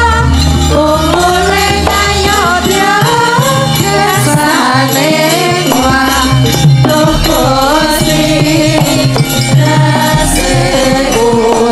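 Sinden (Javanese female singers) singing with wavering, ornamented melody lines over gamelan accompaniment, with long low ringing tones underneath that come and go.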